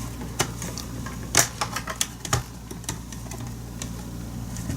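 Irregular light clicks and taps of plastic from handling a partly disassembled Apple Pro Keyboard, its loosened case parts shifting; the loudest clicks come about a second and a half and two and a half seconds in.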